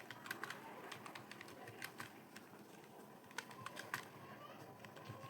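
Computer keyboard keys tapped in a sparse, irregular run of faint clicks.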